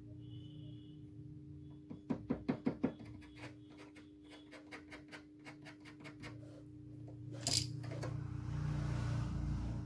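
Small clicks and taps of fingers working on a broken plastic copier paper-cassette part: a quick run of about six clicks around two seconds in, scattered faint ticks, and one sharper click later. A steady hum runs underneath, and a soft rushing noise comes in near the end.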